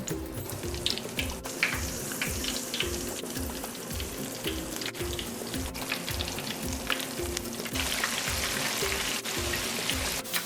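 Flour-coated snapper pieces frying in hot oil: a steady sizzle with scattered crackles. Background music with a steady beat plays underneath.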